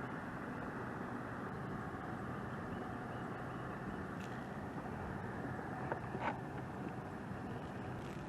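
Steady outdoor rushing noise of wind and water on the microphone, with a few faint clicks about four and six seconds in.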